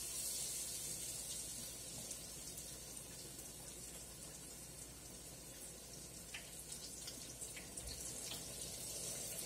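Battered fish pieces frying in a deep fryer: a steady bright hiss of bubbling oil, with a few sharp crackles in the second half.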